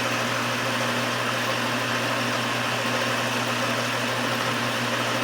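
Engine lathe running steadily under power during a turning pass, a constant motor hum with an even mechanical noise over it.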